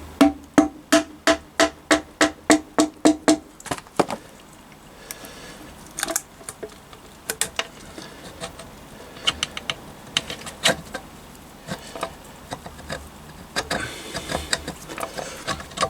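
A hammer taps rapidly on a metal gearbox part of a Triumph Bonneville T140, about four ringing strikes a second for the first three and a half seconds, to knock it loose. After that come scattered light metallic clicks and knocks as the parts are handled.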